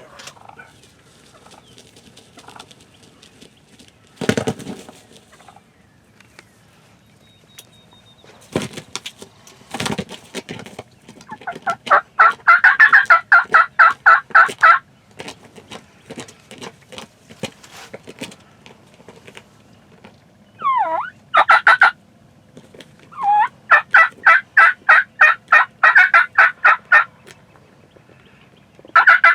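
Wild turkeys calling in several series of rapid, evenly spaced notes, each lasting a few seconds, with one call starting in a falling glide; these are the loudest sounds. A few dull thumps come in the first third.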